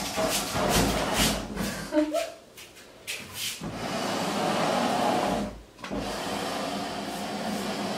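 Wooden desk being shifted and slid across the floor on furniture sliders: a few knocks and clatters, then a long scraping rub that breaks off briefly about six seconds in and starts again.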